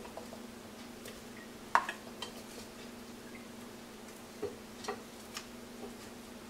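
Light clicks and knocks of food being dropped into a stainless steel pot: one sharp click about two seconds in, a few softer ones later. A faint steady hum runs underneath.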